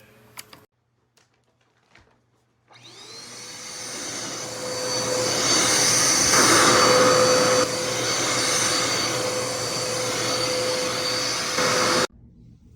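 Dirt Devil Endura Reach bagless upright vacuum cleaner switched on nearly three seconds in. Its motor spins up to a steady whine and runs, then stops abruptly near the end.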